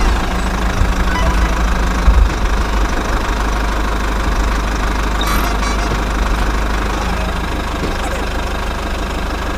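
A vehicle engine running steadily at a rough, knocking idle, with a heavy low rumble and a brief louder bump about two seconds in.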